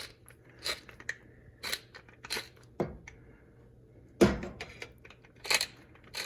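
Hand-cranked pepper mill grinding peppercorns in short separate crunching turns, about one a second. There is a louder knock about four seconds in.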